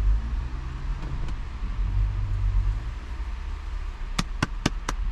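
A man clapping his hands quickly, about four claps a second, starting about four seconds in, over a steady low rumble.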